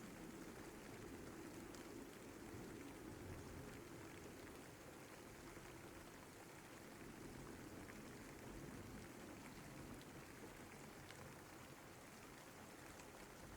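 Steady, soft rain falling, with faint scattered drop ticks.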